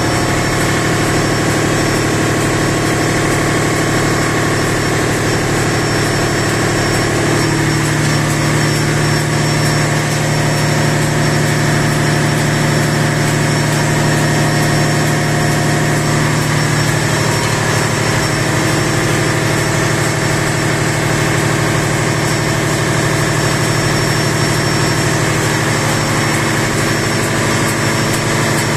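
Steady drone of running machinery in a ship's engine room, a continuous engine-like hum with a slight shift in tone about seven seconds in.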